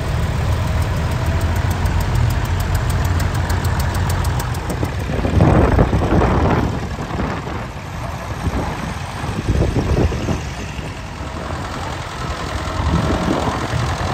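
Vintage tractor engines running at low speed as tractors pass close one after another, among them a grey Ferguson and an Oliver 500 diesel. The engine sound grows louder about five seconds in as one tractor passes close.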